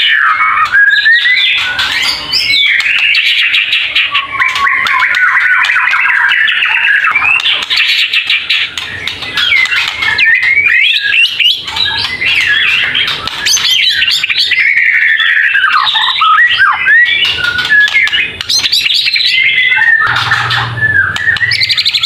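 White-rumped shama (murai batu) singing a near-continuous, varied song of loud whistles, quick up-and-down glides and fast rattling passages, with only brief pauses.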